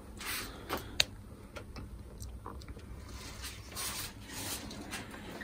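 Faint handling sounds of the DeWalt DW735 planer's motor being unbolted and taken out: scattered light clicks of tools and metal parts, one sharper click about a second in, and soft rubbing.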